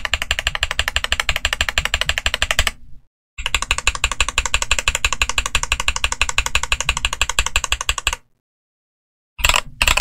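Mechanical keyboard with Flaming Skull Ice Blue tactile switches, in a Redragon Draconic K530 Pro modded with a silicone pour and PE foam, being typed on fast: dense runs of key clacks. There is a brief break about three seconds in, then a pause near the end before a couple of short flurries.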